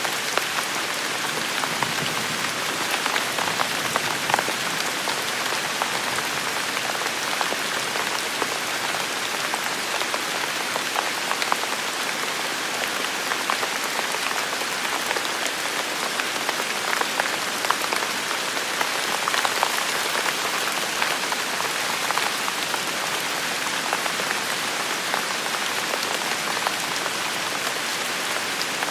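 Steady rain falling on a hard surface, a dense even hiss scattered with the ticks of individual drops.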